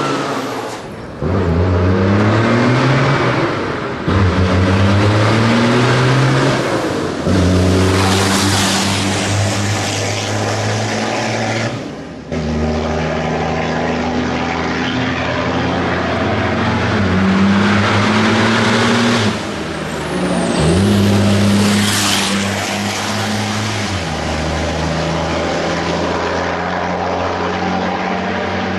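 Dakar rally truck's diesel engine accelerating hard up the hill, pulling through several gear changes: the engine note climbs, drops sharply at each shift, then climbs again.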